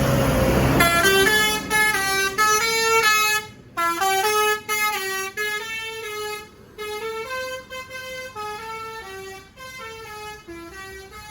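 Basuri telolet multi-tone bus horn playing a melody, note after note in quick succession, growing fainter toward the end. A short rush of noise comes just before the tune begins.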